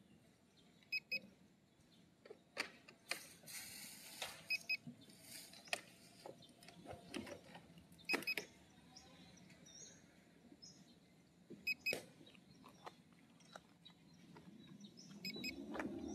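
Faint background with short double electronic beeps repeating every few seconds, mixed with scattered clicks. Near the end a low hum sets in and rises in pitch.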